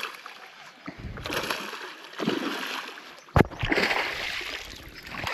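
Water splashing and sloshing in short bursts, with one sharp knock a little past the midpoint.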